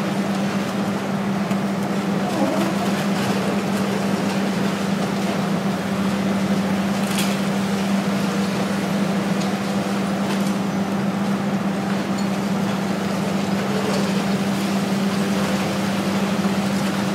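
Demolition excavator's diesel engine running with a steady hum, with an occasional crack or knock from the building being pulled down, the sharpest about seven seconds in.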